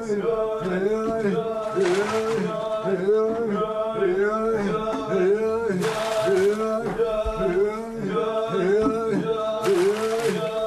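Men's voices chanting the rhythmic work song of a Kenyan 'singing well', where herders pass water up out of a hand-dug shallow well. The same short phrase is repeated over and over at an even pace.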